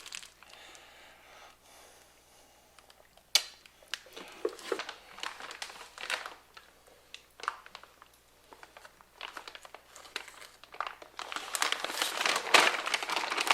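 Plastic packaging crinkling and rustling as new parts are handled and unwrapped, with a sharp click about three seconds in; the rustling gets busier and louder near the end.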